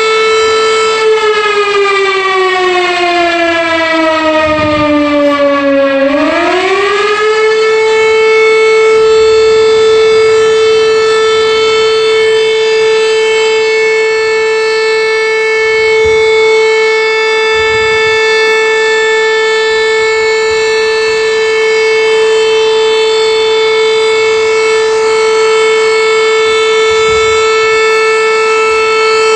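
Volunteer fire station's alarm siren sounding the call-out for the crew. Its loud tone sags in pitch over the first few seconds, swings quickly back up about six seconds in, and then holds one steady wail.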